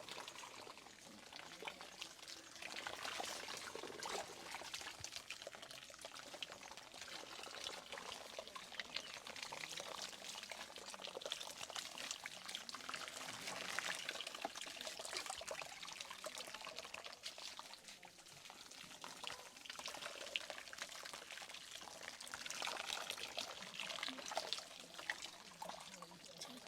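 Wet squishing and rubbing of hands working through wet hair and scalp during a head massage and hair wash, in uneven swells.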